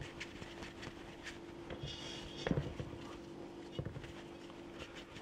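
Hands rolling small balls of buttery cheese dough between the palms, with a few soft thumps as balls are set down on a metal baking sheet, the loudest about two and a half seconds in.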